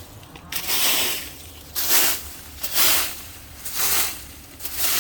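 A small hand broom sweeping up leaves in rhythmic swishes, about one stroke a second, five in all.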